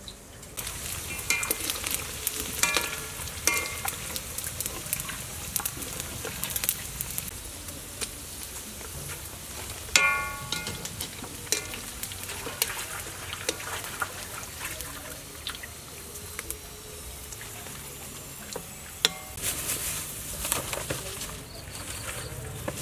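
Beef meatballs and sausages deep-frying in hot oil: a steady sizzle full of sharp crackling pops. A chicken gives a few short calls over it, the loudest about ten seconds in.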